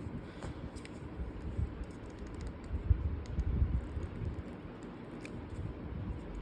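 Handling noise from a small action camera: scattered light plastic clicks and soft low bumps as it is handled.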